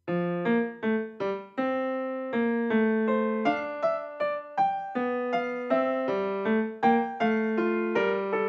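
Background music: a piano melody played as a steady run of single struck notes, a little more than two a second.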